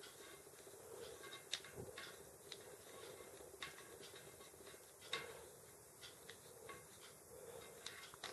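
Faint clicks from a Shimano Nexus twist-grip shifter as it is turned through its indexed gear positions, a few irregular clicks, the sharpest about a second and a half in and again about five seconds in.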